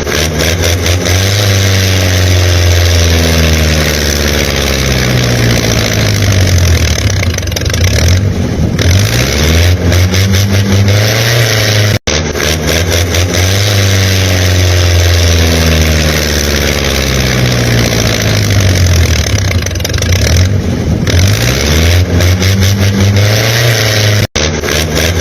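Engine revving up and down over and over, its pitch rising and falling in waves, with two abrupt brief cut-outs about twelve seconds apart.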